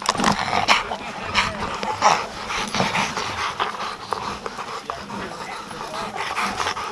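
Catch dog panting close up in repeated breaths, with brush rustling and the metal leash snaps clicking against its harness.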